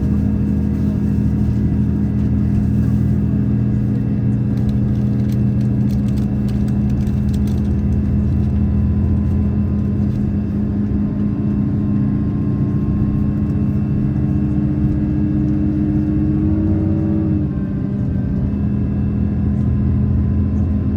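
Cabin of a KiHa 283 series diesel multiple unit under way: the steady drone of the underfloor diesel engine with the train's running noise. One tone slowly rises, then drops abruptly about 17 seconds in, and faint clicks come through early in the first half.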